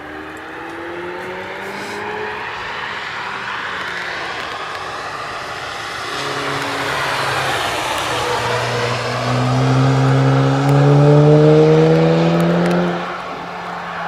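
Racing car engine accelerating hard, its note rising steadily in pitch and growing louder for several seconds, then dropping away suddenly near the end, over a steady wash of noise. A fainter engine note rises briefly at the start.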